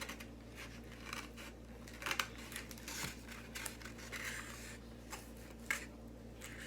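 Close-up eating sounds: chewing with scattered small clicks and crackles from the mouth and fork, over a faint steady hum.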